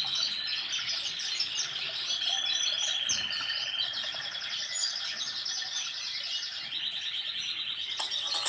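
Phone ringtone made of high, bird-like chirps and rapid trills whose pattern changes every second or so; near the end a different tone pattern cuts in.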